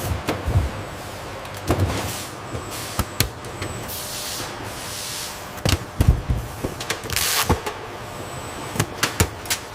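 Factory machinery running with a steady hum, with repeated clunks and knocks and a few short hisses.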